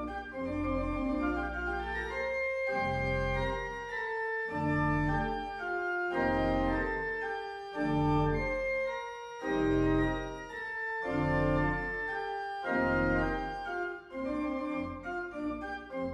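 Church organ playing a slow piece in sustained chords, phrase by phrase, over deep bass notes.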